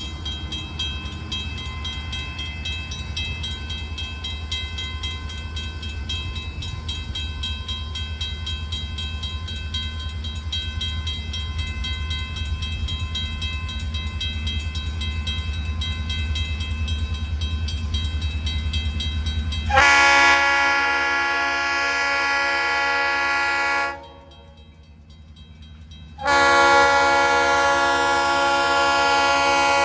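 Train's low rumble slowly growing louder, then its horn sounds a long blast of about four seconds, breaks off, and sounds again about two seconds later, held to the end.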